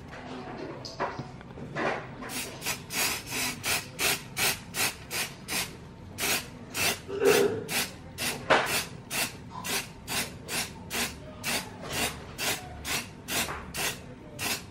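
Aerosol can of waterproofing spray fired in short, quick puffs at a canvas sneaker, about two or three hisses a second, starting about two seconds in.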